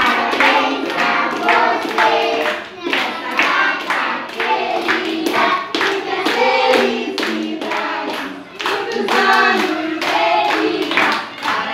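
A group of adults and children singing a birthday song together, with hand-clapping in time to the beat.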